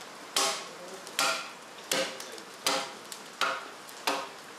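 Axe chopping the butt end of a Kitayama cedar log, shaping it: six evenly spaced blows about three-quarters of a second apart, each a sharp chop with a short ringing tail.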